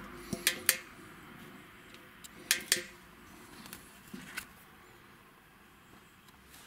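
Sharp clicks and knocks, mostly in pairs, from an action camera and its metal mounting bracket being handled and set in place inside a tyre.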